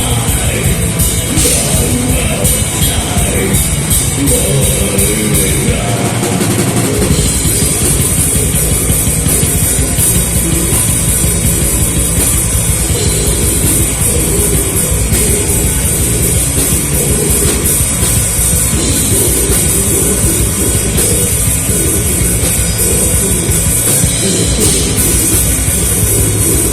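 Loud live rock band playing, with the drum kit and cymbals prominent. About six seconds in, the bass drops out for about a second, then the full band comes back in.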